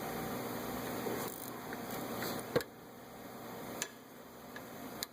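A 3/8-inch ratchet with a 13 mm socket and extension clicking as it turns out a wheel hub assembly bolt. It stops with a sharp knock about two and a half seconds in, and a single lighter click comes later.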